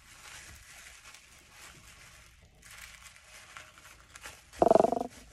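Sewing pattern tissue paper rustling and crinkling as it is folded, pressed flat and tucked into a packet. About four and a half seconds in, a brief loud pitched sound stands out above the paper.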